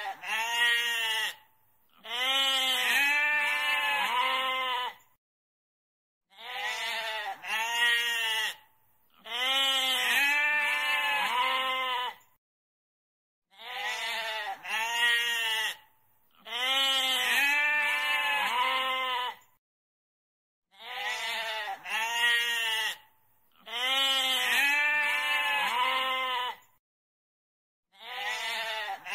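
A goat bleating in a quavering voice, in a repeating set of two short bleats followed by one longer bleat, the set coming round about every seven seconds.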